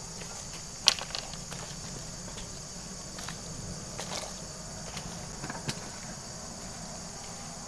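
A steady high-pitched insect chorus drones throughout. On top of it come scattered sharp clicks and scuffs from a fish and net being handled, the loudest a single click about a second in.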